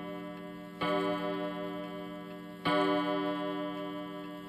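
Old pendulum wall clock's striking train sounding the hour on its gong, set off by hand through a thread on the strike lever: strokes about two seconds apart, each ringing on and slowly fading into the next. The clock's tick-tock runs underneath.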